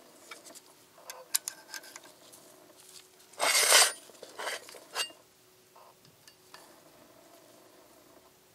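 Light metallic clicks and taps from hands handling the steel parts of an oil friction-test rig and a small cast-iron weight plate, with one louder short scrape about three and a half seconds in. A faint steady hum runs underneath.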